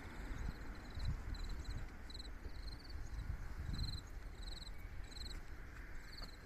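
Rural ambience: many short, high-pitched pulsed chirps repeating irregularly, typical of small calling creatures such as crickets, over a low rumble that swells about a second in and again near four seconds.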